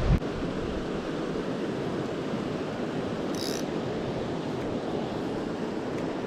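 River water rushing steadily. About halfway through there is a brief high chirp.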